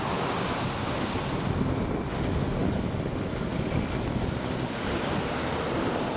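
Strong wind buffeting the microphone, with the rumble of semi-trucks passing close by on the highway.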